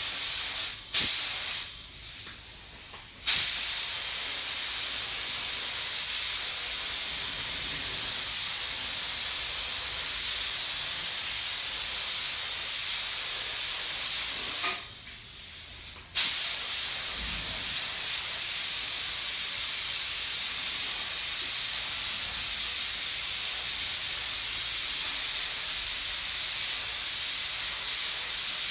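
Gravity-feed paint spray gun hissing steadily as compressed air atomizes a second coat of silver metallic basecoat. The hiss cuts out twice, about two seconds in and again around fifteen seconds, as the trigger is let go, and each time it comes back with a sudden burst of air.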